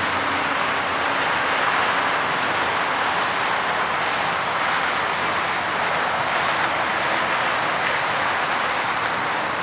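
Steady rushing noise of freeway traffic, an even roar of tyres with no distinct passes.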